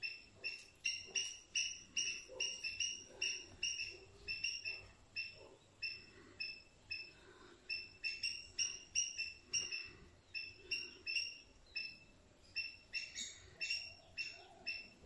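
Faint, high chirps from a small bird, repeated quickly two to three times a second, with two short pauses.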